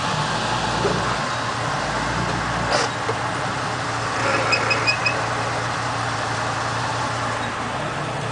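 GMC 4x4 truck's engine idling steadily, with four short high chirps about halfway through.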